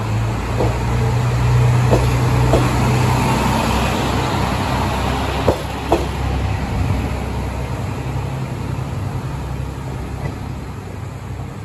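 KiHa 185 diesel railcar pulling out, its diesel engine running with a strong low hum that eases off after a few seconds. Several sharp clicks come from the wheels passing over rail joints, and the sound fades as the train draws away.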